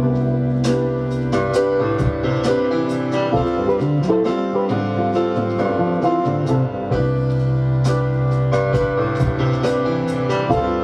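Instrumental music with piano and guitar playing chords, no singing.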